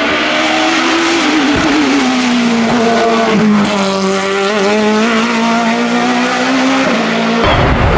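Hillclimb race car engine held at high revs on launch control at the start line, its pitch wavering slightly. Near the end the sound changes abruptly to a rougher, noisier roar.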